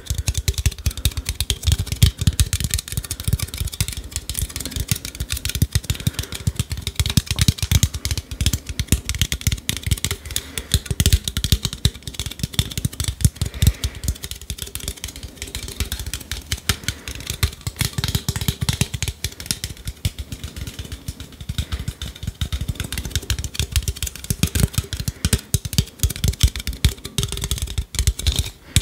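Fingers and fingernails tapping and scratching quickly on an aluminium drinks can held close to the microphone: a dense run of small clicks mixed with low thuds.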